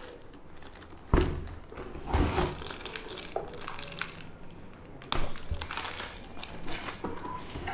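Thin clear plastic bag holding helmet stickers crinkling and rustling as it is pulled out and handled. There are sharper crackles about a second in and again about five seconds in.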